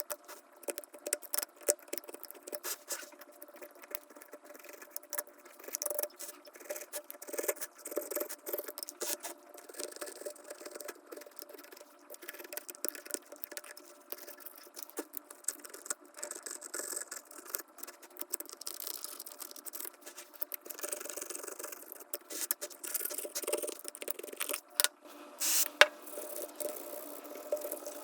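Small hand tools and parts clicking, tapping and scraping irregularly against an iPhone 12 Pro during back glass repair work.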